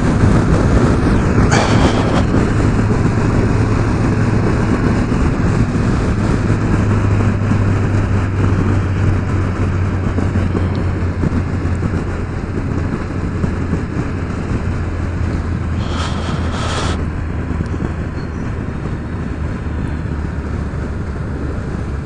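Yamaha FJR1300's inline-four engine running steadily at road speed under a haze of wind and road noise, heard from the rider's seat, gradually getting quieter. Two brief rushes of noise come about two seconds in and about sixteen seconds in.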